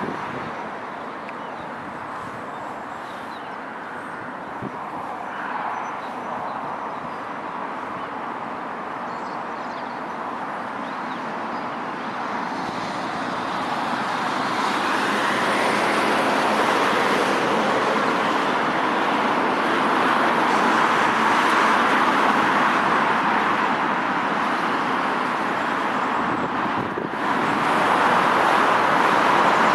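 Airbus A380 jet on final approach: a steady rushing engine noise that swells louder from about halfway through, with a brief dip shortly before the end.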